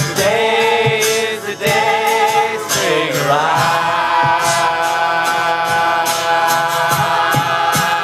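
Live music: a group of voices singing long held notes together, sliding down in pitch about three seconds in, over a steady beat of sharp percussive clicks.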